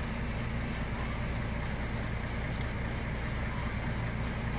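Self-propelled sugar beet cleaner-loader running steadily while loading: a low diesel drone under the even rattle of its pickup and elevator conveyor carrying beets up into a truck trailer. There is one brief sharp tick about halfway through.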